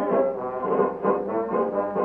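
Instrumental break in a song: brass instruments play a short melodic phrase between sung lines, the treble cut off as on an old record.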